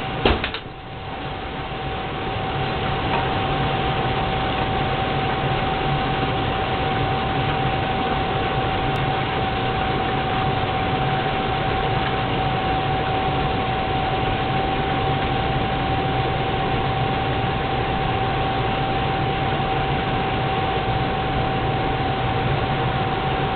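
Propane turkey-fryer burner running: a steady rushing hiss with a low rumble and a thin steady tone on top. A sharp click comes at the very start, and the sound builds over the first few seconds, then holds even.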